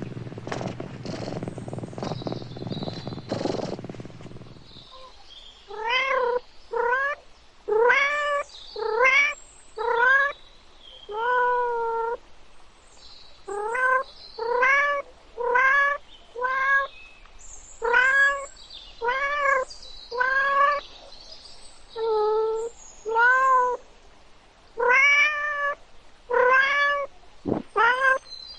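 A cat meowing over and over, short rising-and-falling meows about once a second, after a few seconds of low rumbling noise.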